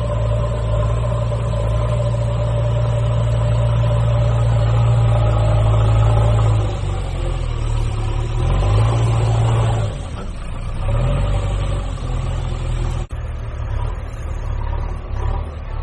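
A steady engine-like drone: a strong low hum with higher overtones that holds for several seconds, then wavers and breaks up in its second half, with a brief cut-out near the end.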